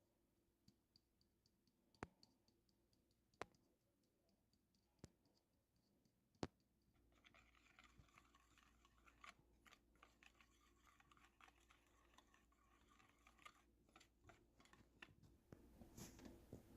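Faint kitchen handling sounds: four light taps or clicks spaced over the first several seconds, then soft, irregular scraping and rustling with small ticks for about eight seconds.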